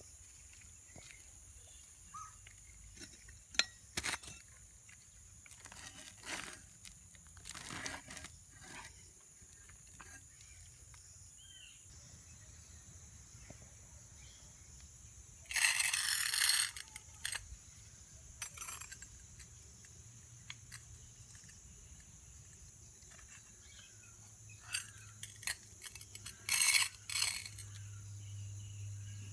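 Old rusty scissor car jack being handled and set down: scattered metal clanks and knocks, a louder scrape about halfway through, and a few sharp clanks near the end. A steady high-pitched whine runs underneath.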